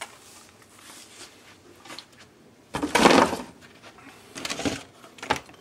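Handling sounds of leather holster gear being moved about on a tabletop: one louder short rustle about three seconds in, then softer rustles and a few light knocks near the end.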